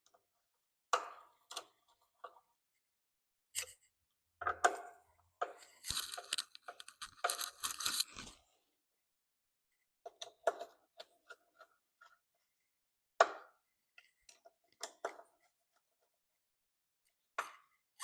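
Hand tools tightening the front fender bolts and screws on a mini motorcycle: scattered metallic clicks and knocks, with a dense run of rapid clicking about six to eight seconds in.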